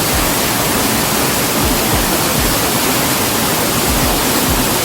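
Steady, loud rush of a waterfall's falling water.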